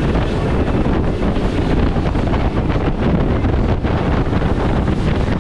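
Steady wind noise buffeting the microphone on a boat running at speed across open ocean, with the rush of the boat's engine and water mixed in underneath.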